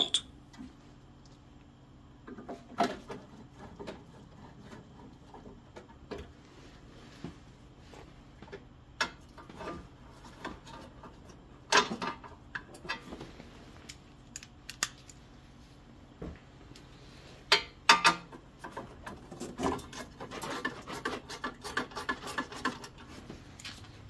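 Scattered clicks and clinks of a hand tool loosening the bolts on a snow thrower's engine cover, with a run of light rattling near the end as the cover is worked loose.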